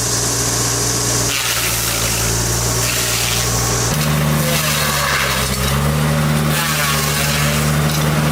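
Spartan SS1950 mini loader's engine running hard, driving a swing-arm stump grinder attachment; its pitch steps up about four seconds in.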